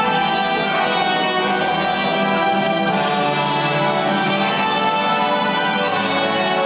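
Show music with an orchestral sound: sustained instrumental chords that change every second or two, at a steady level.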